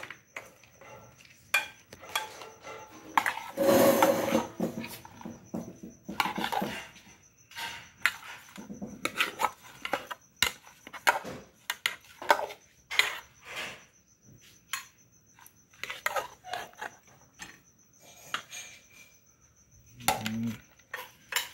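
Metal spoon clinking and scraping against a plastic bowl and dishes as manioc flour is scooped and sprinkled over fried pork ribs: irregular clicks and scrapes, loudest about four seconds in.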